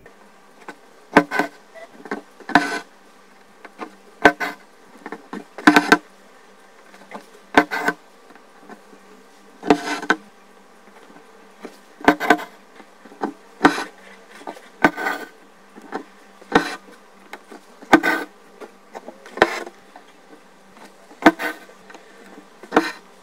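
Stranded cotton embroidery thread being pulled through taut cloth with a needle again and again, a short rasping swish with each stitch, roughly one every second or so, as satin stitches are laid over a padded petal.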